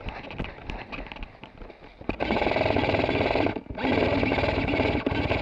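G&P Stoner 63 MK.23 airsoft electric machine gun firing two long full-auto bursts, each about a second and a half, with a short break between them; the firing starts about two seconds in. Before that there are only scattered light clicks and knocks.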